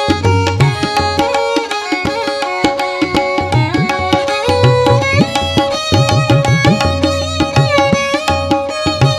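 Tabla playing a quick rhythm, the bass drum's strokes gliding up in pitch, under a sustained melodic line with no singing.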